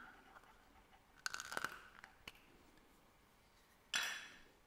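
Light plastic clicks and rattles from a round plastic watch-parts container and its clear plastic insert being handled: a short cluster of clicks about a second and a half in, and one sharper click near the end.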